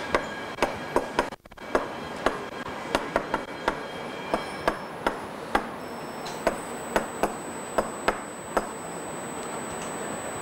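Chalk writing on a blackboard: irregular sharp taps and clicks, two or three a second, that stop about eight and a half seconds in.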